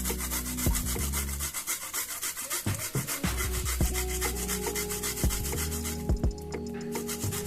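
A shallot being grated by hand on a grater covered with a plastic sheet: rapid, even rasping strokes rubbing back and forth.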